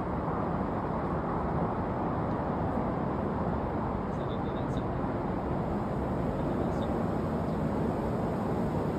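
Steady outdoor rushing noise, with a few faint bird chirps about four seconds in and again near seven seconds.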